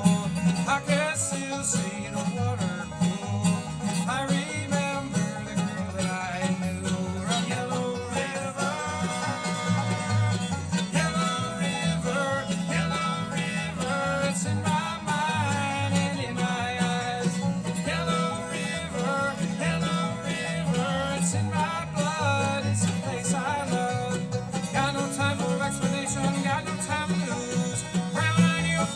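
Live bluegrass band playing a song without vocals: quick banjo picking over guitar and a steady low beat.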